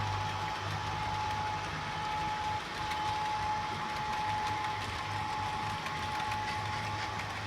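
Model railway train running on the layout: a steady high whine over a low hum, with faint clicking.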